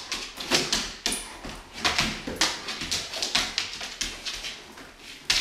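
Large dog excitedly greeting a person at close range: a run of short, irregular scuffling and rubbing sounds as it jumps and is petted on a wooden floor, mixed with the dog's own noises.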